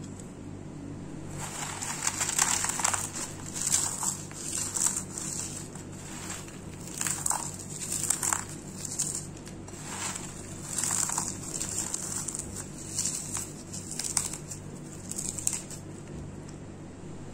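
Dry-roasted lotus seeds (phool makhana) being crushed by hand, giving repeated crisp crunching and crackling bursts over a low steady hum.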